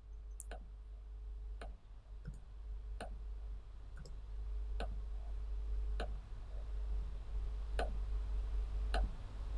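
Computer mouse clicking: single sharp clicks, roughly one a second, over a faint steady low hum.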